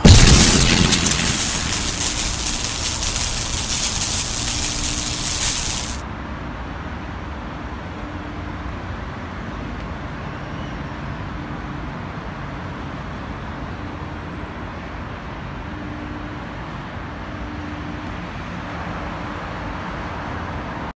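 A loud, steady hiss that stops abruptly about six seconds in, followed by the low, steady noise of road traffic.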